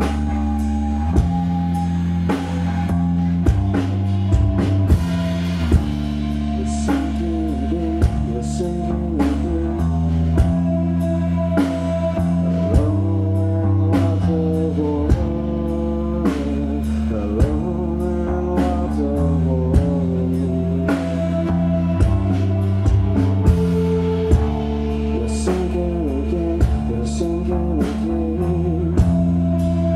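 Live psychedelic rock band playing: electric guitars, bass and drum kit with regular drum hits, and a man's voice singing over them.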